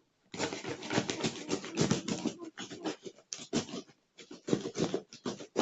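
Packaging being handled and opened: irregular rustling and crinkling with short pauses.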